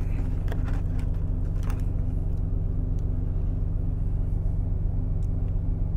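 Steady low drone of an idling truck engine heard from inside the cab. A few light rustles and clicks from the sandwich and its wrapping being handled come in the first two seconds.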